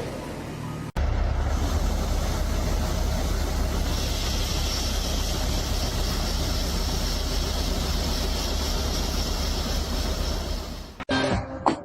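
An engine or heavy machine running steadily, starting abruptly about a second in and cutting off abruptly near the end.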